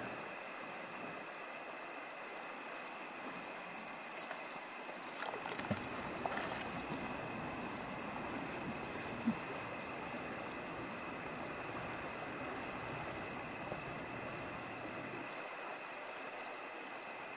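A steady chorus of night insects such as crickets, trilling on several high pitches at once, with a few faint knocks near the middle.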